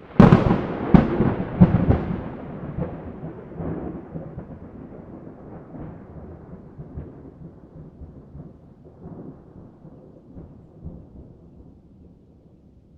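A close thunderclap: a sudden loud crack, with several more sharp cracks in the first two seconds, then a long rumble that slowly dies away.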